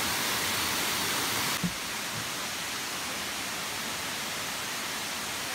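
Rushing water of the Kuang Si Falls' limestone cascades: a steady hiss of falling water. It is brighter and a little louder for about the first second and a half, then drops slightly and stays even.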